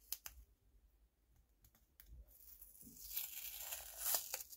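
A few light clicks, then from about two seconds in a crackling, tearing noise that grows: stickers being peeled off a roll of paper stickers.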